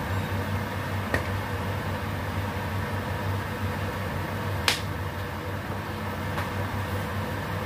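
Induction cooktop running with a steady low hum from its cooling fan, broken by two sharp clicks, the louder one a little over halfway through.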